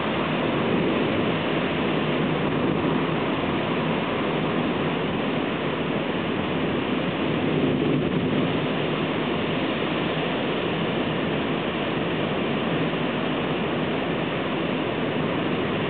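Heavy thunderstorm downpour: rain pouring down in a steady rushing hiss.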